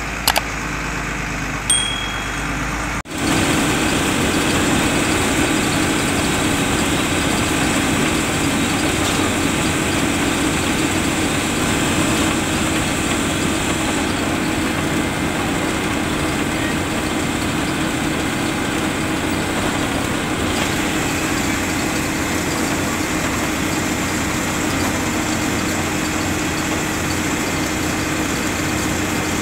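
MSRTC sleeper bus engine and road noise heard from the driver's cab, a steady drone while cruising on the highway. In the first couple of seconds there is a click and two short high beeps; about three seconds in, the drone becomes louder and holds steady.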